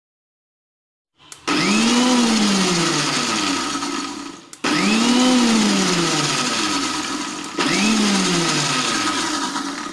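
Electric mixer grinder (mixie) blending egg, oil and lemon into mayonnaise in reverse mode, run in short pulses. About a second in, the motor starts, and it runs in three back-to-back bursts, each rising and then sagging in pitch as the thickening mix loads it.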